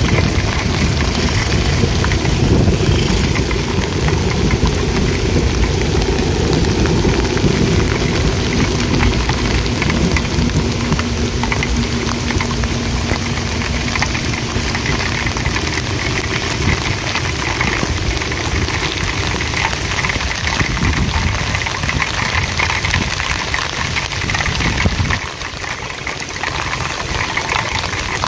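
Heavy rain pouring down, mixed with the low rumble of passenger train coaches rolling past on the rails. The rumble fades as the last coach goes by, and the rain carries on, a little quieter, for the last few seconds.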